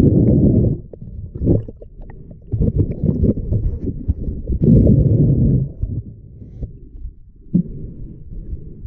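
Muffled underwater noise from a swimming diver's camera: low, rumbling surges of moving water against the housing, one every second or two, with a few small clicks between them.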